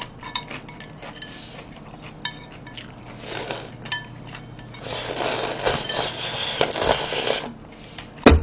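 Metal chopsticks clicking and clinking against a bowl of cold naengmyeon. Then a long slurp of noodles and broth from the bowl held at the mouth, lasting about two and a half seconds. A single sharp knock comes near the end.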